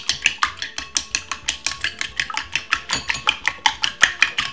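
Eggs being beaten in a bowl with a metal utensil: quick, even clinks of the utensil against the bowl, about five or six strokes a second.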